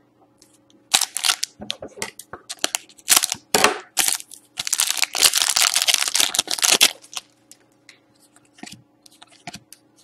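A Panini Select hockey-card pack being handled and torn open: sharp crinkles and crackles of the wrapper, then a longer continuous tearing crinkle from about four and a half to seven seconds in, followed by a few light clicks as the cards are handled.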